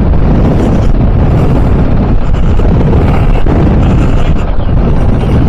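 KTM 690 Enduro R's single-cylinder engine running while riding off-road, under loud, steady wind rumble on the microphone.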